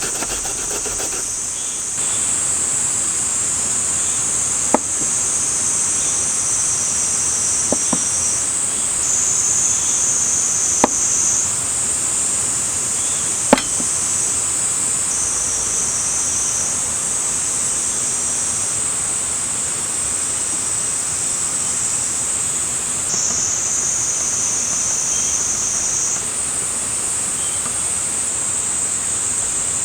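Cicadas singing in a loud, continuous high-pitched drone that shifts slightly in pitch a few times. A few sharp taps come through about 5, 8, 11 and 14 seconds in.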